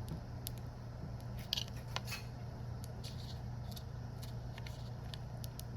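Scattered small clicks and short scratchy scrapes of hand tools working on a Redmi Note 7 phone during a battery replacement, over a steady low hum.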